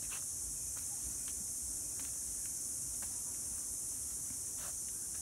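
Steady, high-pitched chorus of insects, such as crickets or cicadas, with a few faint clicks and taps.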